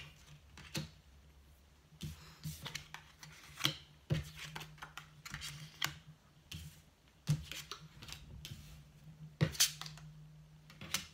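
A deck of tarot cards being shuffled and handled, giving irregular sharp snaps and light taps of card against card and on the table, over a faint low hum.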